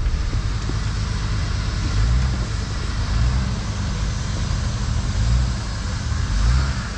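Off-road 4x4 engine running during a snow recovery, its low rumble swelling about once a second under a steady hiss.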